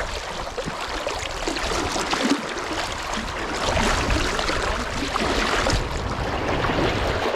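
River water rushing and splashing, with a low wind rumble on the microphone.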